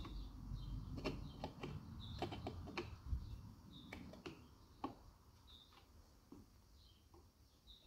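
Faint clicks and small snaps of a screwdriver prying apart a plastic gearbox housing along its seam. The clicks come thickly for about five seconds, then thin out.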